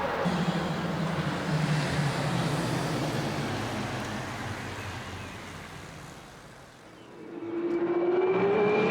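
Single-seater race car engines on track: a car's engine noise fades away, then about seven seconds in another car's engine comes in with a steady note rising in pitch as it grows louder.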